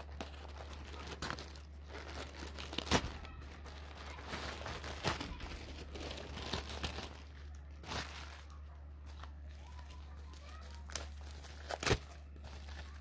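Plastic courier mailer and padded bubble-wrap envelopes being handled and pulled open by hand: crinkling and rustling with irregular sharp crackles, loudest about three seconds in and again near the end.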